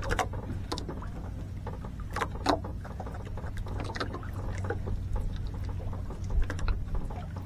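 A steady low motor hum with scattered light clicks and knocks over it, a couple of sharper taps about two and a half seconds in.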